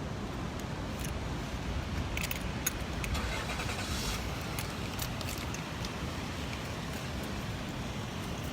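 Steady low rumble of surf and wind in rain on the microphone, with scattered light ticks and rattles in the first half.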